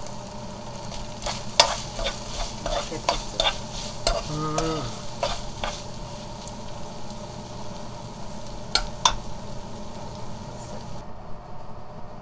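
A metal spoon scraping and clicking against a nonstick wok while gochujang-glazed dried pollack is stirred, over a steady low sizzle of the sauce cooking. The clicks come in a quick run between about one and four seconds in, then a few more, with two sharp ones near nine seconds.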